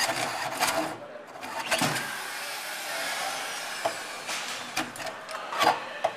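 Drill driving a hole saw through a metal panel: the motor runs under load with a grinding cut, its pitch sliding as the speed changes, and several short sharp knocks along the way.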